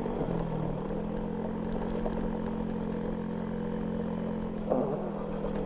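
Honda Zoomer scooter's 49cc four-stroke single, fitted with an old Moriwaki aftermarket muffler, running under way with a steady engine note. The pitch dips for a moment just after the start, then picks back up and holds.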